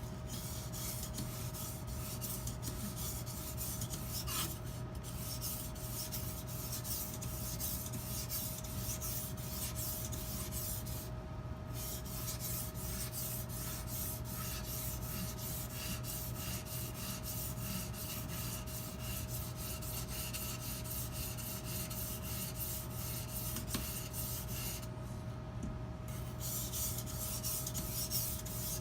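A 400-grit sharpening stone on an Edge Pro Apex sharpener rubbing back and forth along a butcher knife's edge in rapid, repeated strokes, with a few short pauses. A steady low hum runs underneath.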